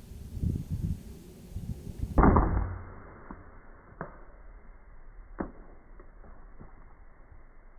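A bow shot: one loud, sharp thwack of a hunting bow releasing an arrow about two seconds in, after soft rustling, followed by a couple of faint clicks.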